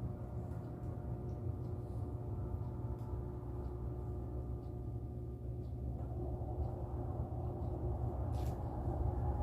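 A steady low hum with faint steady tones above it, turning into a broader even hiss about six seconds in. Over it come a few faint soft clicks of chewing.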